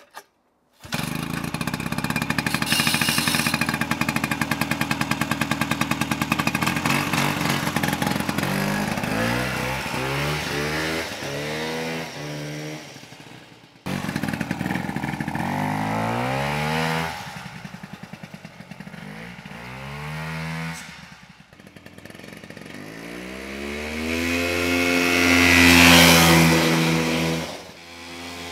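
Homebuilt snowmobile's 247 cc Ski-Doo Elan two-stroke engine running, holding a steady speed at first, then revving up and down over and over as the sled is ridden. It grows loudest near the end as the sled drives past.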